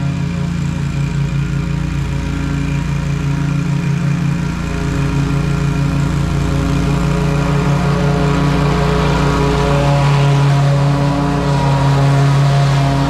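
32-inch Toro Grandstand stand-on mower running steadily while mowing, growing louder as it comes up close.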